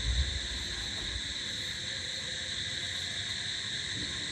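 Steady chorus of crickets, a continuous high trilling with no breaks. Light wind buffets the microphone briefly at the start.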